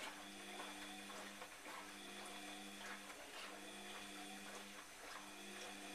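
Bosch Classix 1200 washing machine at the start of its wash cycle, filling with water: a faint hiss of incoming water under a steady low hum that drops out briefly a few times.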